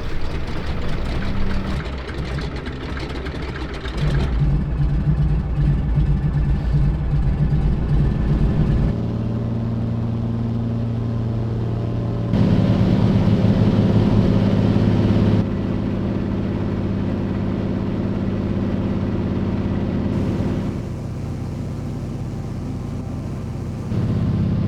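Steady engine drone heard in a run of short clips, its pitch and loudness jumping abruptly at each of about five cuts.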